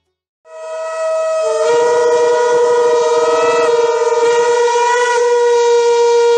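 Several conch shells blown together in long held tones, one of them wavering, starting out of silence about half a second in.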